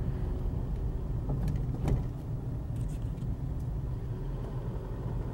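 Isuzu MU-X driving slowly along a dirt bush track, heard from inside the cabin as a steady low engine and road rumble. There is one knock about two seconds in.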